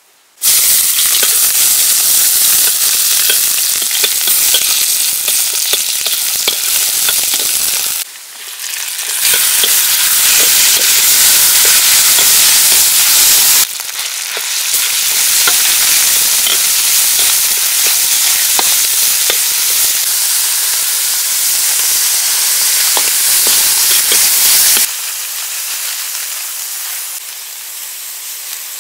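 Red paste and beef frying in hot oil in a steel wok, a loud sizzle with clinks of a metal ladle stirring against the pan. The sizzle breaks off and starts again abruptly a few times, and is quieter near the end.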